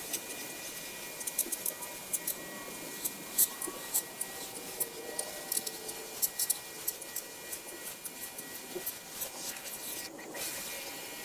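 Greenworks 1700 PSI electric pressure washer running, its jet hissing steadily against a building wall with many sharp spatters and crackles of water. The spray breaks off briefly about ten seconds in.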